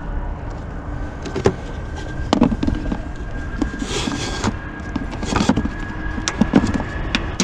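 Clicks and knocks of jump-starter clamps and cables being handled and clipped onto the car's jump points, with two short rustling hisses around the middle over a faint steady whine.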